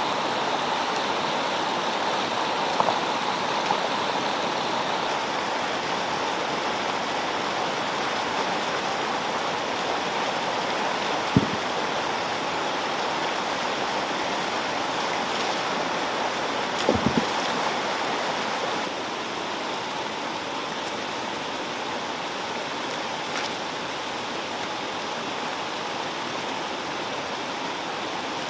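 Steady rushing of a shallow stream running over rocks, with a few sharp knocks of stones being handled, the loudest about eleven seconds in and a quick cluster about seventeen seconds in.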